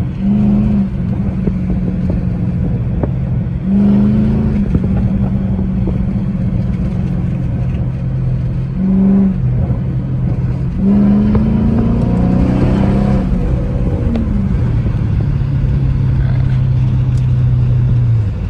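Straight-piped 5.7 HEMI V8, mufflers and resonators removed, running loud under way. It takes short blips of throttle, then a longer pull with rising revs about 11 seconds in, and settles to a lower, steady drone after about 14 seconds.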